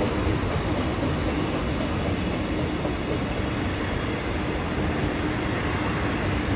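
JR Freight container train's flat wagons rolling past, a steady rumble of steel wheels on the rails that holds level throughout.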